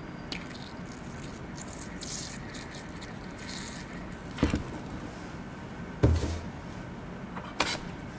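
Plastic wash bottle squeezed, squirting water onto the opened crayfish in a few faint short hisses, then three knocks as it is handled, the middle one a dull thump.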